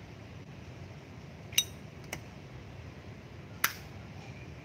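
Three sharp clicks from a cigarette lighter being opened and struck to light a cigarette, the first with a brief metallic ring.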